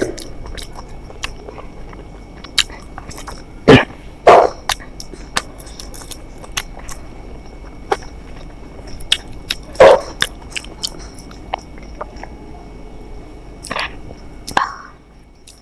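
A person eating close to the microphone: chewing, with many small mouth clicks and smacks and a few louder bites.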